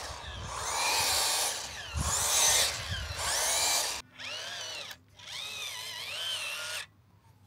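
Small electric motors and gearbox of a toy Ripsaw-replica RC tank whining in several bursts. The pitch rises and falls as it speeds up and slows, with brief stops about four, five and seven seconds in.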